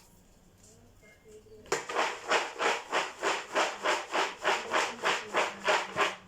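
Spoon stirring peanuts in a pan, a rhythmic back-and-forth scraping of about three strokes a second that starts about two seconds in.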